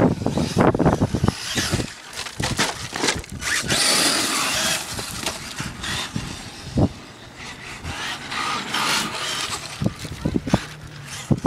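Electric Traxxas E-Maxx RC monster truck driving: motor, drivetrain and tyre noise, with a stretch of steady hiss and many short knocks as it runs over pavement, then scrabbles up a pile of wood chips near the end.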